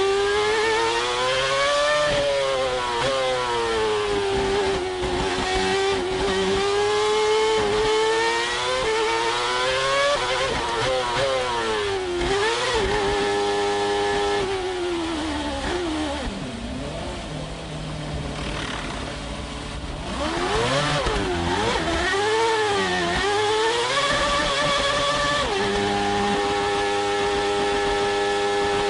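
Red Bull RB7's Renault V8 Formula One engine heard onboard, its pitch rising and falling through gearshifts as the car slows into the pit lane, then holding at one steady pitch on the pit-lane speed limiter. Midway it drops lower and quieter for a few seconds, then climbs through quick shifts and settles at the same steady pitch again.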